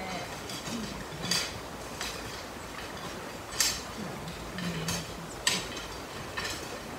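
Hand tools clinking and knocking against stone and concrete: three sharp knocks about two seconds apart, with softer ones between.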